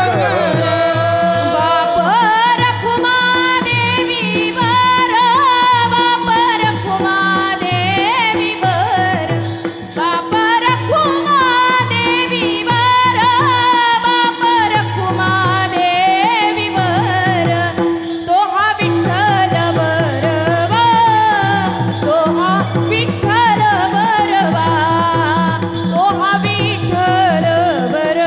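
A woman singing a Marathi devotional abhang in warkari bhajan style, with brass hand cymbals (taal) clashing in time, a steady drone and a low drum keeping a regular beat.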